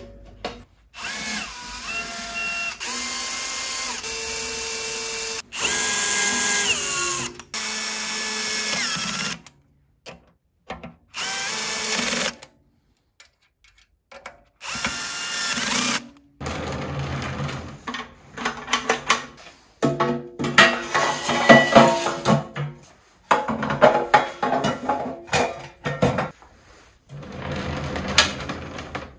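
Cordless drill-driver running in short bursts of a second or two, its whine rising and falling with the trigger. In the second half there is a busier stretch of clattering and knocking.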